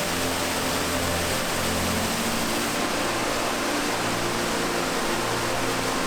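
Waterfall's steady rushing roar of falling water, with faint low notes of background music underneath.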